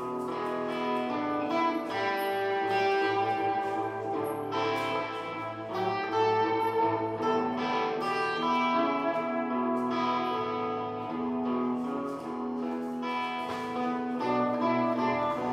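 Guitar playing a blues over held chords and a bass line that steps every second or two.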